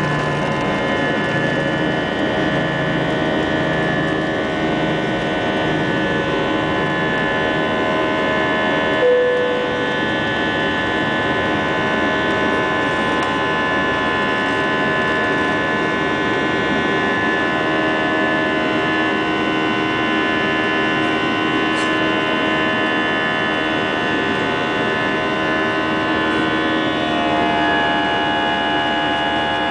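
Airbus A320 cabin noise in flight: a steady engine drone with many held whining tones. There is a brief louder blip about nine seconds in, and near the end the engine tones shift in pitch as the power changes.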